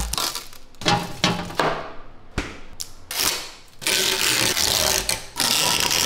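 Plastic wrap and packaging being pulled and rustled while a new refrigerator is unpacked: short rasps and scrapes at first, then longer steady rasps in the second half.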